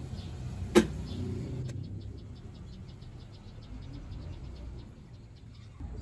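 Panasonic top-load washing machine draining: a low steady hum with one sharp mechanical click about a second in, then faint rapid ticking, about six ticks a second.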